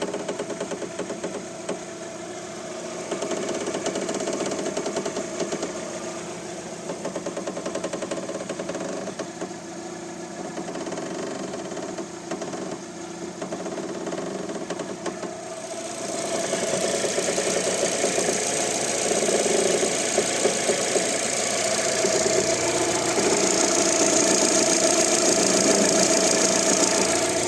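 Creaking and knocking from a worn front anti-roll bar end link on a 2017 Fiat Tipo, heard over the car's engine and running noise. The noise grows louder and brighter about halfway through.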